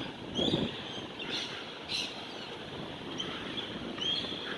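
Street ambience: birds chirping several times over a steady background of city traffic noise, with a brief louder low rumble about half a second in.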